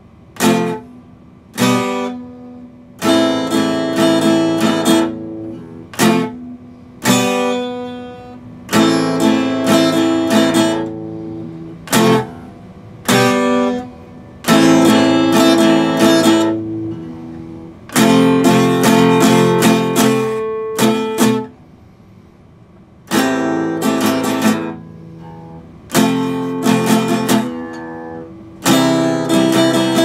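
Epiphone acoustic-electric guitar strummed unplugged, chords played in short phrases with brief pauses between them.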